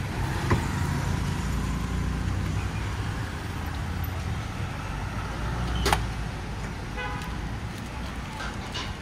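Road traffic running past: a steady low rumble of cars and motorbikes. A sharp click sounds about six seconds in, and a short horn-like toot follows about a second later.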